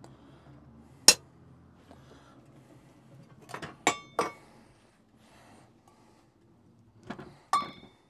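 Metal clicks and clinks as an aluminium moka pot and an enamel camp mug are handled on the stove: one sharp click about a second in, a few ringing clinks around four seconds, and another ringing clink near the end.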